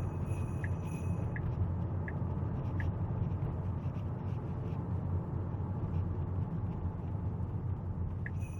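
Steady low rumble of road and tyre noise inside a moving Tesla's cabin. A turn-signal indicator ticks evenly, about every 0.7 seconds, then stops about three seconds in.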